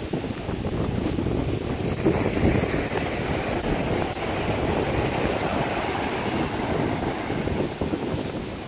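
Sea surf washing steadily onto a beach, with wind buffeting the microphone.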